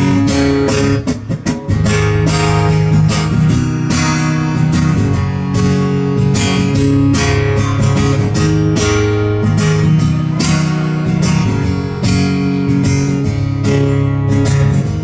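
Acoustic guitar strummed hard and steadily through the chords of a song, with a brief letup about a second in.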